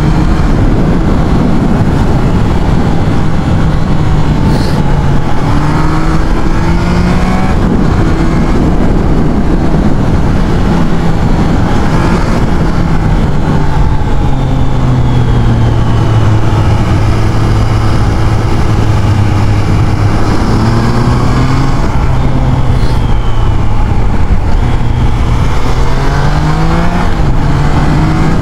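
Triumph Trident 660's three-cylinder engine under way, its pitch climbing and dropping back several times as it pulls through the gears. It settles into a steady lower drone for several seconds in the middle, then climbs and steps down again near the end.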